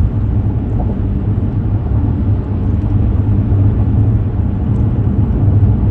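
Steady low road and engine rumble heard from inside a moving car's cabin on the highway.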